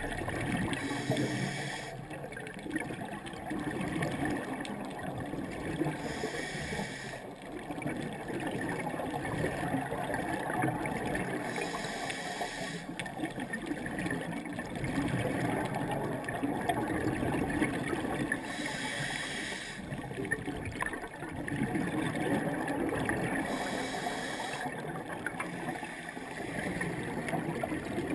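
Scuba regulator breathing heard underwater: a short hiss every five seconds or so, with bubbling and gurgling water noise between the breaths.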